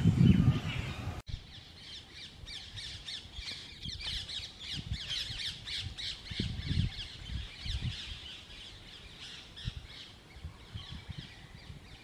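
Rose-ringed parakeets giving many quick, shrill, overlapping squawking calls, over scattered faint low thumps. The first second holds a louder low rumble that stops abruptly.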